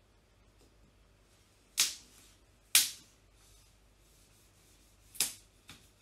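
Glued balsa joints cracking as a spatula pries two glued-together fuselage sides apart. There are two sharp, loud cracks about a second apart, a third a few seconds later, and a fainter one just after it.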